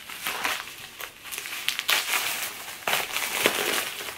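Paper wrapping crinkling and rustling as a gift is handled and unwrapped, with sharp crackles about two, three and three and a half seconds in.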